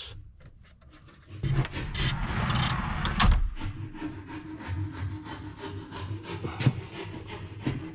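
Solid-core wooden pocket door sliding closed on its track with an anti-slam device: a wooden rolling rub for about two seconds that ends in a knock as the door comes home. A sharp click follows a few seconds later.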